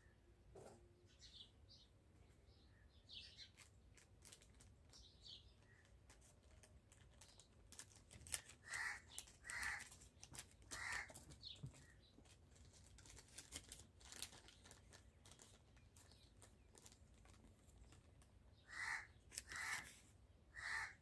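Faint animal calls, three in a row about nine seconds in and three more near the end, with soft clicks and rustles between.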